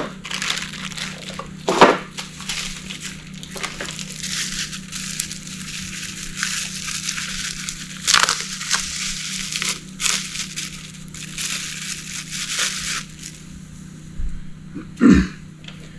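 Crinkling and rustling of plastic packaging, most likely the wrapping of a new timing kit being handled or opened, with a few sharp knocks. A steady low hum runs underneath.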